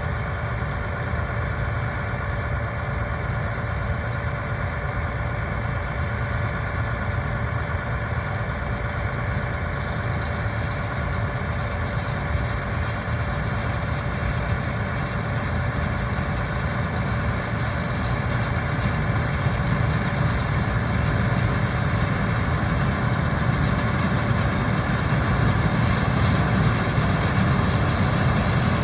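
Combine harvester running steadily while harvesting wheat: a constant engine drone with a steady whine of machinery above it, growing a little louder in the last third.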